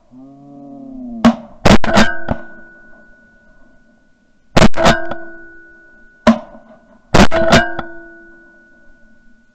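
A volley of shotgun shots from more than one gun at ducks in flight: about eight loud blasts, in quick pairs and singles, each with a trailing ring. A drawn-out call is heard in the first second.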